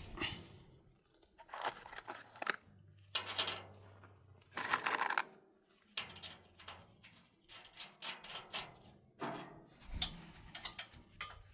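Scattered handling noises of rubber mat and hardware being worked by hand: short knocks, rustles and scrapes, with a longer scraping or tearing sound about five seconds in.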